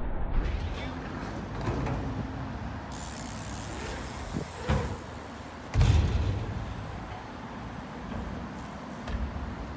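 Bike tyres rolling over skatepark ramps and tarmac, with a sharp knock just under five seconds in and a heavier thump about six seconds in, typical of the bike landing on a ramp.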